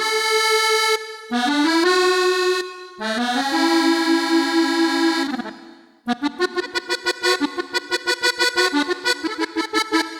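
Accordion patch on a Yamaha MODX8 synthesizer, played from the keyboard. It plays three held chords with short breaks between them, then from about six seconds in a quick run of short repeated notes, about four a second.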